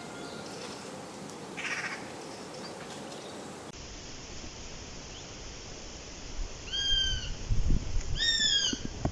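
Eurasian sparrowhawk calling: a short, rough call a couple of seconds in, then near the end two drawn-out calls that rise and fall in pitch, the second louder, over a low rumble.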